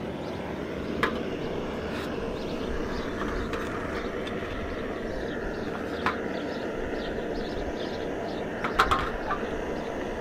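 Jetboil camping stove's gas burner running steadily as it heats water, with a few light clicks of the stove's parts being handled, about a second in, around six seconds and near the end.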